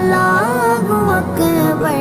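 A Hindi film song: a voice singing a melody over instrumental accompaniment.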